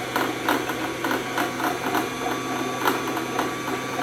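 Singer electric sewing machine running steadily to wind thread onto the bobbin: a steady motor hum with repeated clicks, about two or three a second.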